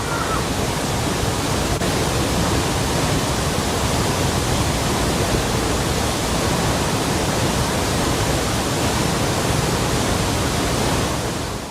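Loud, steady rushing of a large waterfall at close range, a dense noise without breaks that fades out just before the end.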